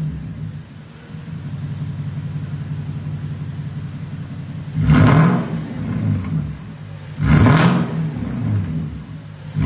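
2013 Porsche Cayenne GTS's 4.8-litre V8 idling through an exhaust fitted with an electric cutout, blipped twice: about five seconds in and again about two and a half seconds later. Each rev rises sharply and drops straight back to idle.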